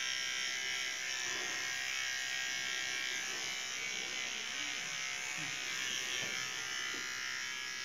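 Small electric finishing trimmer, a men's body-hair trimmer, buzzing steadily as it clips the fur on a dog's belly.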